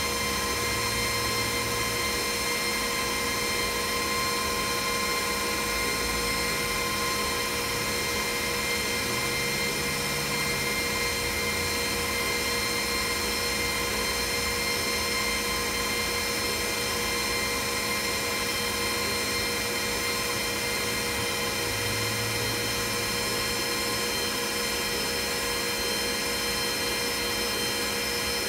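Glowforge laser engraver running as it engraves a wooden piece: a steady mechanical whir with several constant whining tones that hold unchanged throughout.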